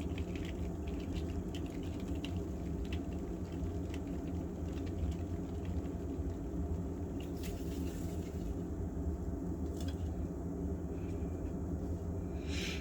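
Steady low hum of room noise, with scattered faint light taps and rustles.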